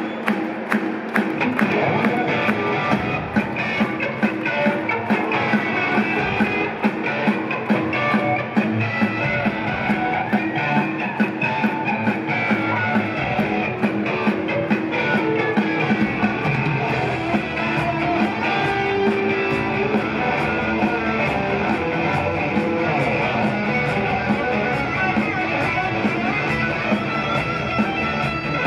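Live rock band playing loud electric guitar over a steady drum beat, recorded from within an arena audience.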